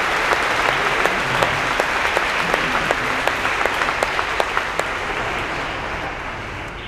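Audience applauding, dense clapping that gradually fades toward the end.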